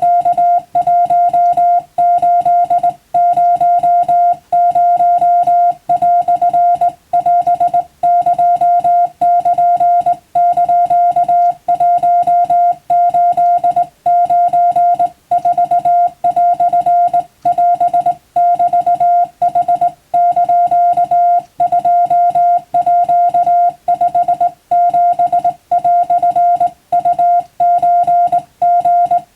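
Morse code tone keyed on and off in rapid dots and dashes, with short pauses between characters. It is Japanese wabun telegraph code.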